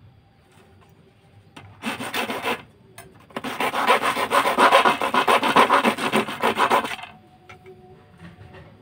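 Hacksaw blade sawing through a thin fiberglass rod resting in a notched wooden block, in rapid back-and-forth strokes. There is a short spell about two seconds in, then a longer, louder spell from about three and a half to seven seconds.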